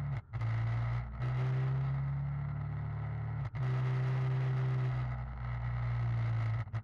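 Motorcycle engine running at a steady cruising speed with wind rush, a constant low drone. It breaks off abruptly for an instant about four times and picks up again.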